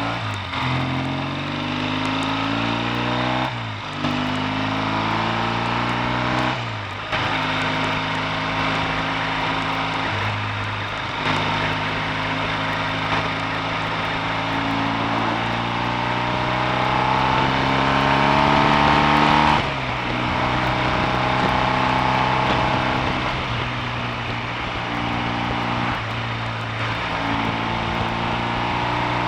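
Triumph T140V's 750 cc parallel-twin engine under way, pulling up through the gears of its rebuilt five-speed gearbox: the engine note climbs and drops back at each change, three times in the first seven seconds. It then runs in a long, slowly rising pull and eases off about two-thirds of the way through.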